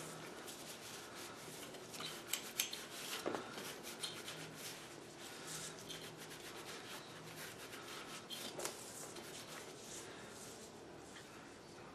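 Faint scrubbing of a metal Stanley hand-plane part with a scouring pad to clear surface rust, with a few light clicks.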